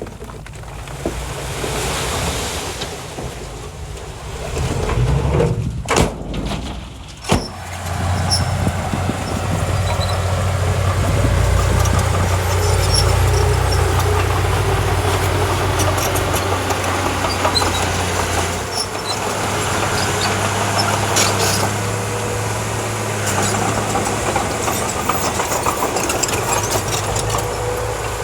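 Diesel engine of construction machinery running, steadier and louder from about eight seconds in, with two sharp knocks just before.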